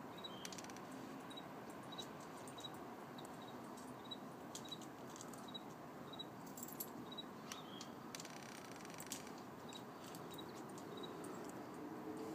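Faint outdoor background with a short, high chirp repeating about twice a second and scattered light clicks.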